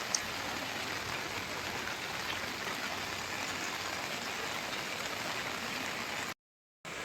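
Steady heavy rain falling and pattering on surfaces, with one small tick just after the start; the sound drops out completely for about half a second near the end.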